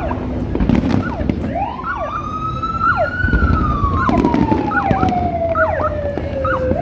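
A siren wails once, rising over about two seconds and then falling slowly. Short sliding whistles and the low rumble of fireworks and the crowd run underneath.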